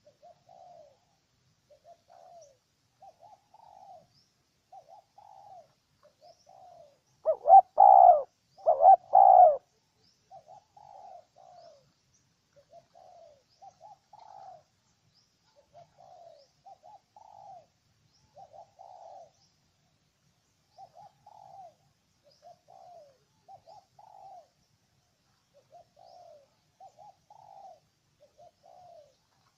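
Spotted dove cooing: short, faint coos repeated roughly every second, with a much louder, closer burst of coos about eight seconds in.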